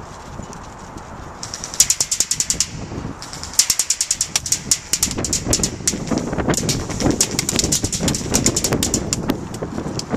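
SIG 552 Commando airsoft gun firing on full-auto, with the BBs heard striking a metal gas tank: a burst of sharp ticks lasting about a second, then a longer string of about six seconds, at around ten ticks a second.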